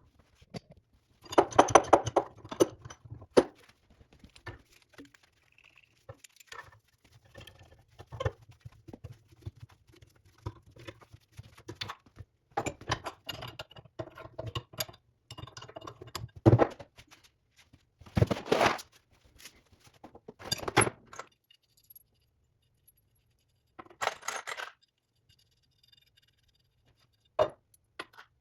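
Metal hand tools and parts clinking, clanking and scraping in irregular bursts, with short quiet gaps between them.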